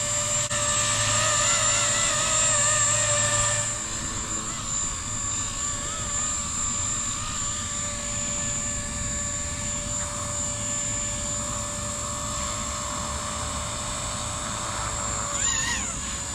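Blade CP235 electric RC helicopter in flight: a steady motor and rotor whine whose pitch wavers slightly as the head speed shifts. It is louder for the first few seconds, and there is a quick swoop in pitch near the end.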